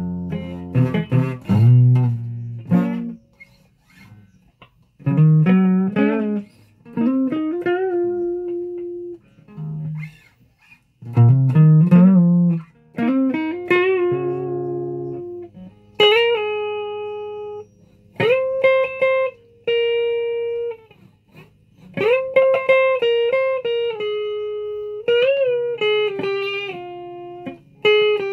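Guitar played as single-note melodic phrases with held notes and pitch bends, broken by short pauses.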